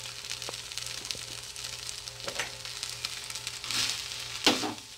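Fried rice sizzling in a hot wok as a wooden spatula stirs and tosses it, with scattered clicks of the spatula on the pan. The sizzle swells louder near the end and stops on a sharp knock.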